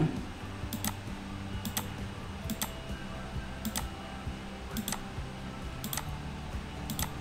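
Computer mouse clicking sharply about once a second, over a low steady hum.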